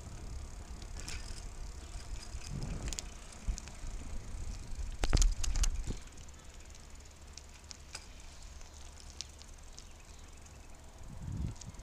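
Bicycle ride heard from the rider's handheld camera: a steady low rumble of wind and tyres on the road, with scattered sharp clicks and a loud cluster of clicks about five seconds in, after which it goes quieter.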